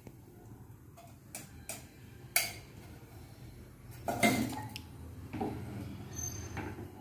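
Kitchenware clinking and knocking: a few light clicks, then a louder clatter about four seconds in, followed by a few more knocks.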